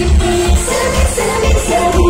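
Loud pop song playing over the concert sound system: singing over a steady bass beat, about two beats a second.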